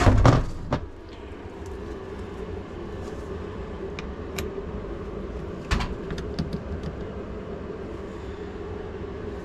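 A cordless drill driving a screw into the floor for under a second at the start, then a steady low machine hum with a few scattered clicks and knocks.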